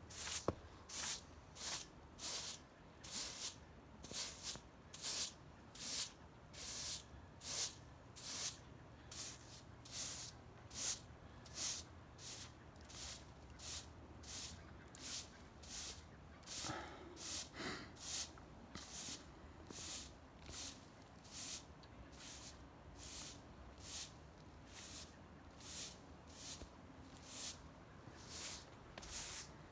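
Hand saw cutting coast fir (Douglas fir) along the grain, in steady rhythmic strokes of about two a second, each a short hiss of the teeth through the wood.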